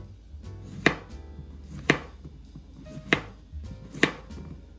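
Kitchen knife slicing through a zucchini into rounds, the blade knocking on a bamboo cutting board four times, about once a second, over background music.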